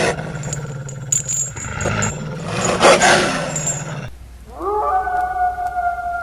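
Harsh wolf growling with clattering noise. About four and a half seconds in, a wolf howl slides up and then holds a steady pitch.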